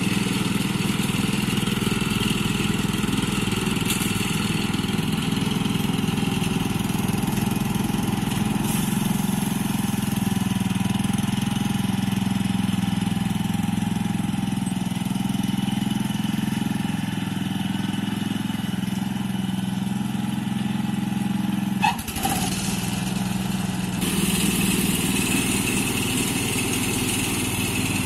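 WOLF Garten Expert Scooter Pro riding mower's 382cc engine running steadily as the mower drives over the lawn mowing. About three quarters of the way through there is a brief sharp click, after which a hiss rises over the engine.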